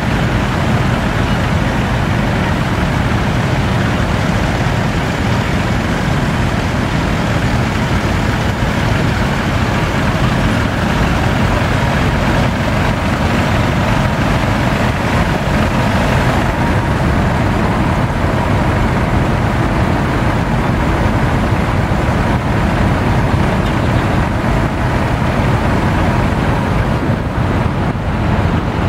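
Engines of several vintage tractors running steadily as they drive past one after another in a procession.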